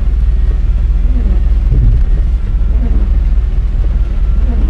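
Steady low rumble of a pickup truck driving, heard from inside the cab.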